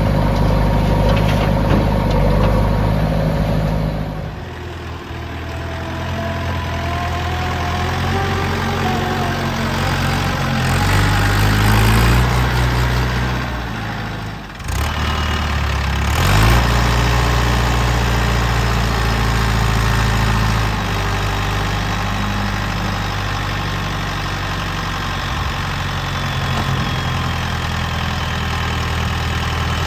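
Diesel engines of a backhoe loader and farm tractors running, with engine speed rising and falling as they work. The engine sound drops and changes abruptly about four seconds in and again about halfway through.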